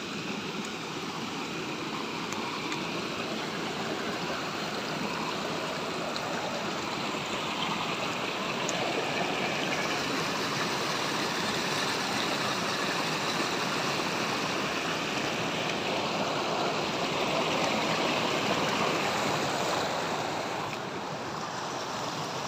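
Muddy rainwater runoff stream rushing and splashing over rocks, a steady sound of running water that grows a little louder in the later part and eases near the end.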